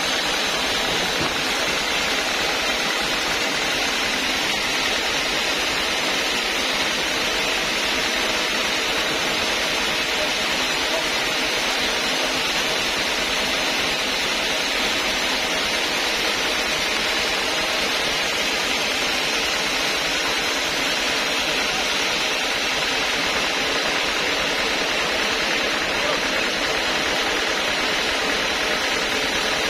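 Steady, unchanging machine noise from the sawmill running, with no cutting heard.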